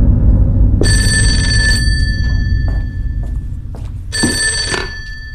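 Black rotary desk telephone's bell ringing twice: a ring of about a second, then a shorter one, over a low rumble that fades away.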